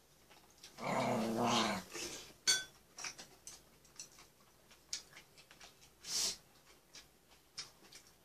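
A dog growls once, lasting about a second. Shortly after, metal chopsticks strike a dish with a sharp ringing clink, followed by light clicks and taps of cutlery on tableware.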